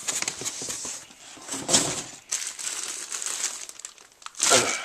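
Crumpled packing paper rustling and crinkling in a cardboard box as hands dig through it, in uneven bursts with short pauses.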